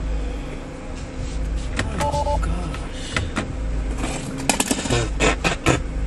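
Car sounds: a steady low rumble of the car, a short beeping tone about two seconds in, then a quick run of clicks and knocks near the end.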